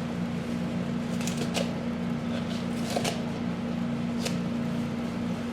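Light kitchen handling noises, a few soft clicks and rustles spread through, over a steady low hum.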